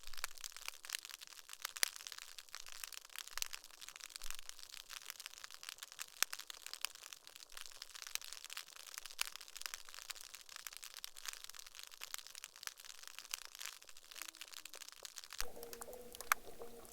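Snapping shrimp crackling underwater: a dense, continuous crackle of sharp clicks with nothing below it. Near the end a low pitched call with two steady tones comes in.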